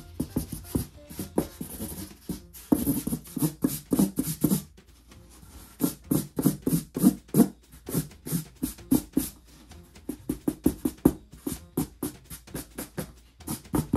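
Felt-tip marker scribbling fast on a cardboard comic box: quick scratchy back-and-forth strokes in dense runs, with short pauses about five and ten seconds in.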